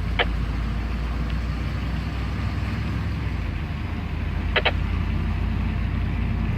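Steady low rumble of a car driving, with a short tick just after the start and a quick double tick about four and a half seconds in.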